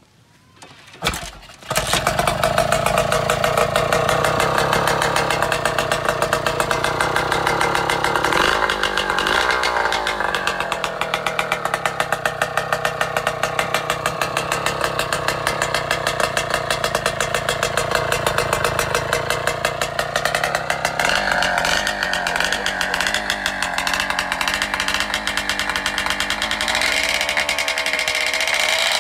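Kawasaki Ninja two-stroke motorcycle engine, kick-started and catching about two seconds in, then running with no exhaust pipe fitted. It makes a raw, rapid buzz much like a chainsaw, and its revs rise and fall a few times.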